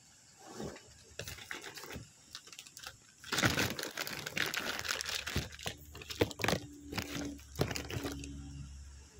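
Close crinkling and rustling of plastic, with scattered clicks; it grows loud and dense about three seconds in and dies away near the end, when a faint low hum is left.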